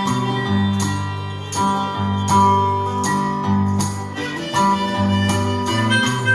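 A live band playing an instrumental break of a folk song: strummed acoustic guitar over a moving bass line, with a held melody line on top.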